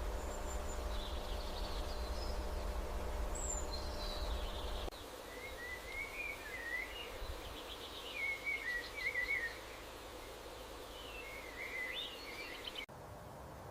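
Birds chirping and singing in short, warbling phrases. A low steady hum under them cuts off abruptly about five seconds in, leaving the birdsong over quieter background noise.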